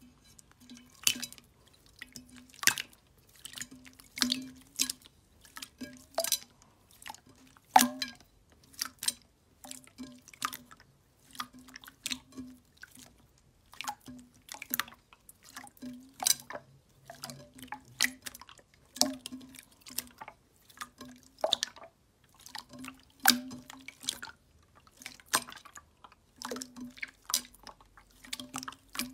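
Clear slime being pressed and squeezed by hand, giving irregular wet clicks and pops, a few each second.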